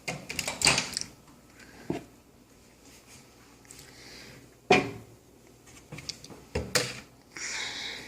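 A few separate clicks and knocks, the loudest about halfway through: a microwave door being opened and shut and a mug set down inside.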